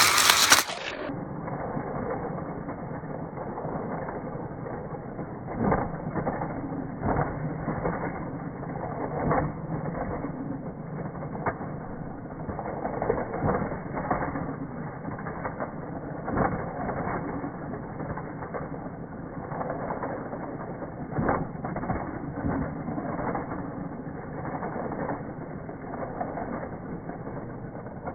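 Slowed-down, muffled rattling and clattering of Hot Wheels die-cast toy cars running on a plastic track, with irregular knocks every second or two.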